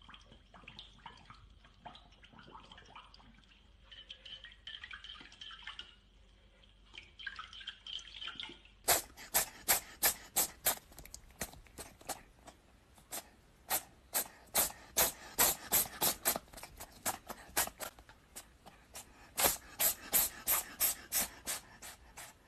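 A dog lapping water from its bowl in soft irregular laps. About nine seconds in this gives way to a cat grooming a person's hair close to the microphone, licking in sharp smacks about three a second.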